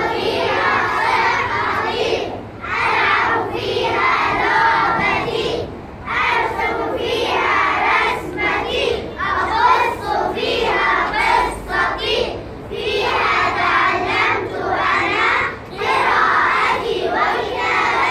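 A group of young children singing in unison, in phrases of a few seconds with short breaks between them.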